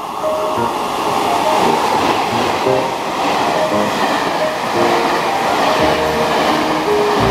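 Chu-Kuang Express locomotive-hauled passenger train passing through the station at speed without stopping. Its wheel-on-rail noise swells in the first second as the train arrives and then holds steady as the coaches run past.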